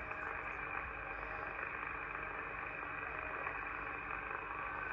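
Static from a Cobra 2000 GTL CB radio's speaker, tuned to 27.395 MHz lower sideband with no station transmitting. It is a steady hiss of band noise with faint steady tones in it, the noise the band is full of at this moment.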